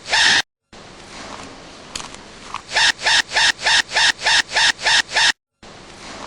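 Baby panda's sneeze repeated over and over in an edit: one at the start, then about nine short, sharp sneezes in quick succession, about four a second, over a low background hiss. It cuts to dead silence twice, briefly.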